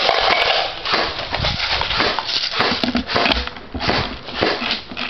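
Footsteps on a debris-strewn concrete floor, with rustling of clothing and gear: a run of irregular knocks and crunches.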